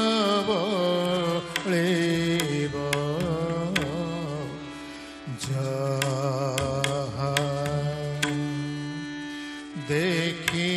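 Odissi classical music in Raga Kirabani: a male voice sings a gliding, heavily ornamented melody over sustained harmonium notes, with sharp strokes from a mardala drum keeping the ektali rhythm.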